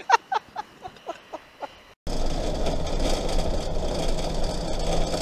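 A woman's laughter trailing off, then, after a sudden cut about two seconds in, the steady engine and road noise of a motorhome driving, heard from inside the cab.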